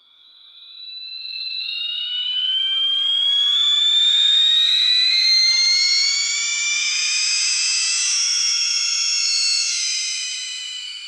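Electric lift motor of a dental chair whining as the chair rises: a high-pitched whine that fades in, climbs slowly in pitch for about six seconds, then holds steady and fades away near the end.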